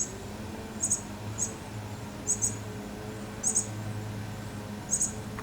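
A small bird chirping: short, very high chirps, often in quick pairs, about once a second. A low steady hum runs underneath.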